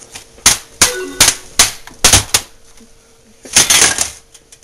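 Computer keyboard keys clicking: single key presses a fraction of a second apart, then a quick flurry of typing near the end.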